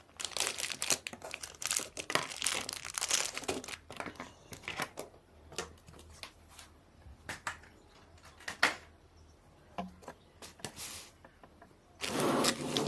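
Packaging crinkling and rustling as it is handled while unpacking. It is busy for the first few seconds, thins to scattered clicks and rustles, and turns into a loud burst of rustling again near the end.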